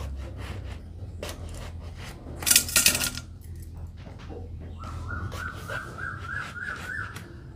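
A brinjal being cut by hand against a bonti blade: a run of short crisp cuts and clicks, with one louder, sharper burst of noise about two and a half seconds in. A faint wavering high tone comes in for the last few seconds.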